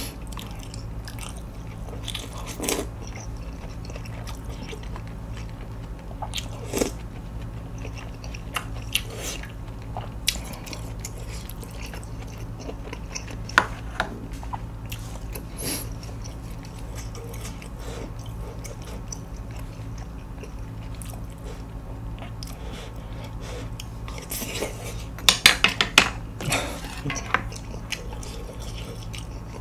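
Close-miked eating sounds: chewing of grilled beef, with a metal spoon and chopsticks clicking against a stone pot, bowls and the grill, over a steady low hum. About 25 seconds in comes a quick run of sharp clicks.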